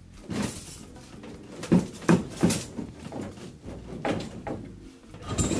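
A cut section of cast iron drain pipe knocking and scraping as it is worked loose by hand, in a string of irregular knocks.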